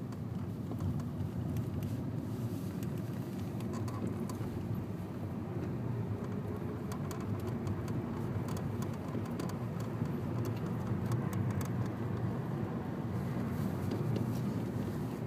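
Honda Civic engine running steadily with light, irregular clicking over it: the clutch noise that the owner is showing.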